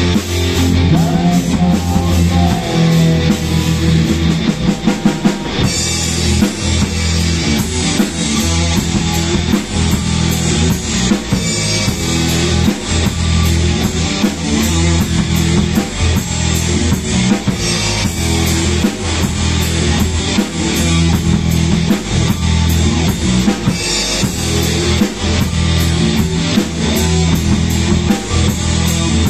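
Rock band playing live, loud: a drum kit beating a steady rhythm over electric guitar and bass. The top end fills out about six seconds in.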